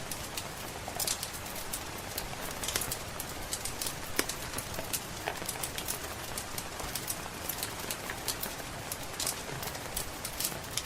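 Wood fire crackling in a fireplace, with irregular sharp pops and snaps, the loudest about four seconds in, over a steady hiss of rain.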